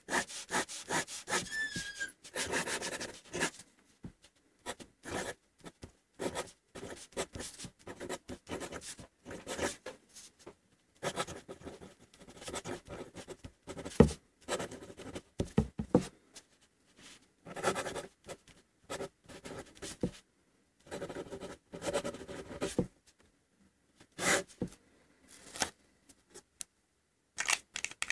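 Pilot 78G fountain pen nib scratching across paper while writing by hand, in short stop-start strokes with brief pauses between words and lines.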